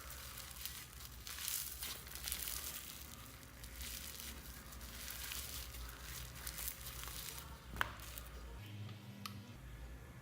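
Slime being squished and mixed by hand, with soft irregular crackling and crinkling and a sharp click about eight seconds in.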